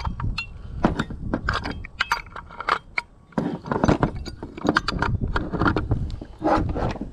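Irregular metallic clinks and clanks as a furnace burner gas manifold and a new gas valve are handled and turned with a wrench, the valve being threaded onto the manifold.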